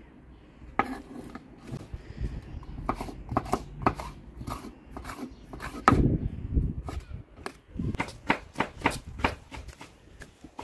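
Chef's knife slicing a yellow bell pepper on a wooden cutting board: a run of uneven knocks as the blade strikes the board, about two a second, the loudest about six seconds in.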